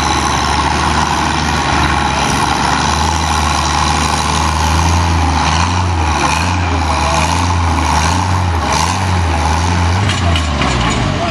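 Antique tractor engines idling steadily, with the engine speed rising and falling a little in the second half.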